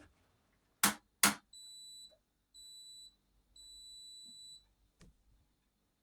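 Two sharp clicks from a Hotpoint Aquarius washing machine, then three high beeps, two short and a longer third, and one fainter click.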